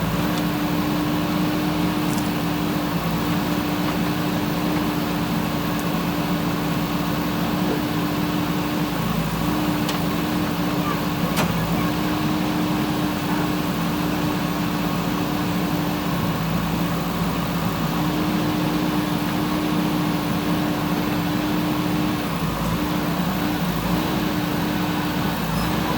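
JCB 3DX backhoe loader's diesel engine running at a steady speed, with an even hum that does not rise or fall.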